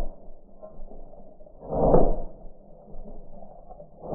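Gunshots from an 1874 Camel model Gatling gun slowed to super slow motion, each stretched into a deep swelling whoosh about two seconds apart. One fades out at the start, one peaks about two seconds in, and another rises near the end.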